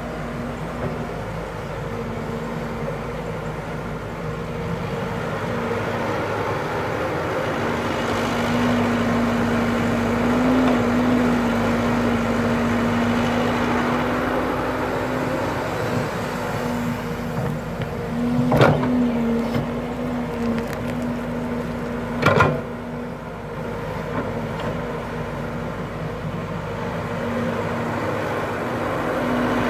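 Caterpillar tracked hydraulic excavator's diesel engine running under load with a steady hum that swells and eases as it works the soil. Two sharp clanks from the machine come a little over halfway through, about four seconds apart.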